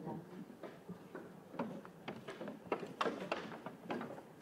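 Footsteps on a trail: irregular light knocks and scuffs, several a second at times.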